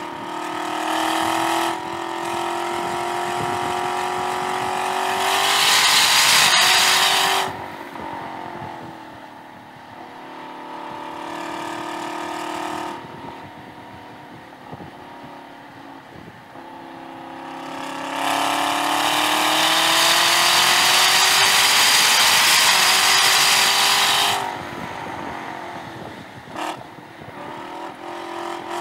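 Chevrolet Camaro ZL1 1LE's supercharged V8 under hard acceleration on track: two long full-throttle pulls, each rising in pitch and cutting off suddenly as the driver lifts, with quieter part-throttle running through the corner between. A short rev blip near the end goes with a downshift from fourth to third.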